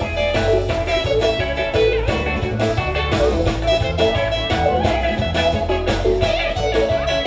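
Live band music: plucked guitar lines over a steady bass and drum beat.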